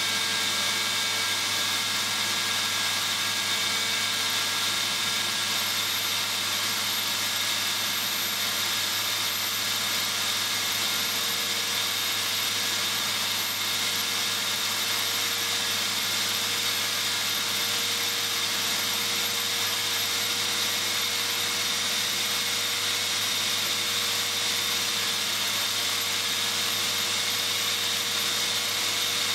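Tool-post grinder running at a steady whine, its wheel grinding the inside of a tapered steel bore with a continuous hiss while the Boxford lathe turns the work. This is internal grinding of an ER32 collet holder's taper bore to 8 degrees.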